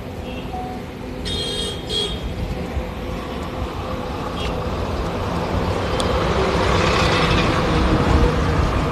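Road traffic: a vehicle horn toots briefly about a second in, then the rumble of passing vehicles grows steadily louder.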